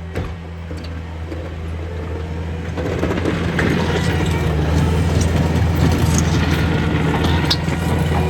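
Cat 289 compact track loader's diesel engine running steadily as it plows snow, getting louder about three seconds in, with scattered clanks and rattles over the engine.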